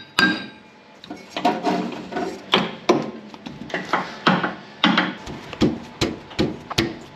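A run of hammer blows, about two a second after a short pause at the start, knocking the old front shock absorbers off their mounts on a Toyota 40 series Landcruiser.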